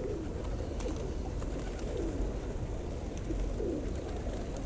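Pigeons cooing: several low, falling coos about a second apart, over a steady low rumble.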